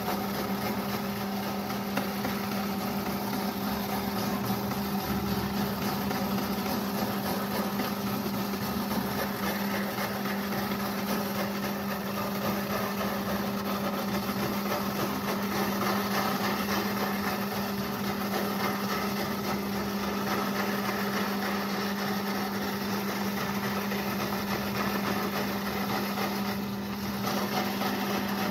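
Small metal lathe running steadily with a constant hum, spinning a home-made rotary grater drum while carrot is pressed against its blades, with a continuous grating scrape over the motor; it eases briefly near the end.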